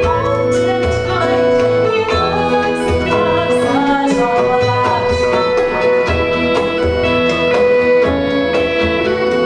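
A Celtic band playing live: a full instrumental passage with a steady beat of low thumps and a sustained note held beneath the melody.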